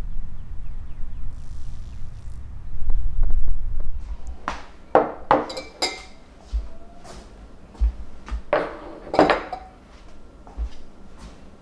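A low rumble for the first few seconds, then empty glass storage jars being set down and moved on a tabletop: a series of sharp clinks and knocks, each ringing briefly.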